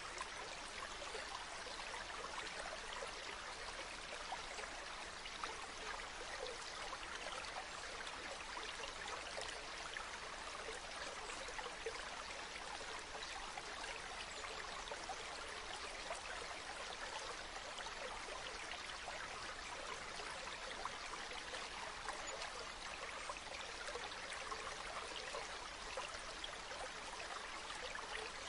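Shallow stream running over pebbles: a steady rush of water dotted with many small splashes and trickles.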